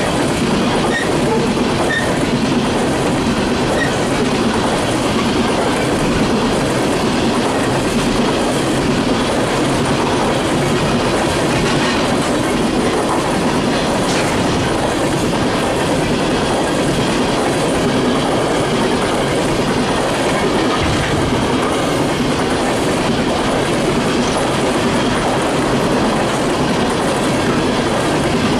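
Empty coal train passing close by: the steel wheels of the empty coal cars rolling on the rail in a steady, loud rumble and rattle that does not let up.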